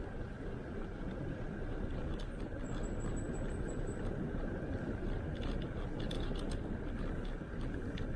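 Steady wind and road noise on the microphone of a rider in motion: an even rumbling rush with no clear engine note. A faint thin high whistle is heard briefly about three seconds in.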